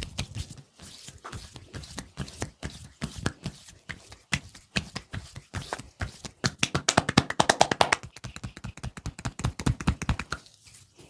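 Hands working on a person's head and hair in a massage: a steady run of sharp taps, scratches and clicks, with a fast, loud flurry of taps about two-thirds of the way through.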